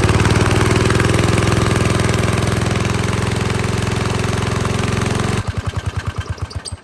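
Riding lawn mower engine running at wide-open throttle, its pitch sagging a little. About five seconds in it drops to slow, separate beats and stops abruptly: the engine locking up, and it is then found seized.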